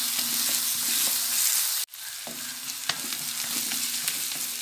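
Chopped shallots, garlic and curry leaves sizzling in hot coconut oil in a kadai, stirred with a wooden spatula that scrapes and knocks against the pan a few times. The sizzle cuts out for an instant a little before halfway, then goes on.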